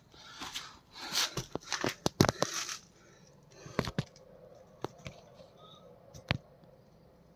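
Handling of parts on a dismantled engine: about three seconds of scraping and rustling with sharp clicks, then a few single clicks and knocks spaced a second or so apart.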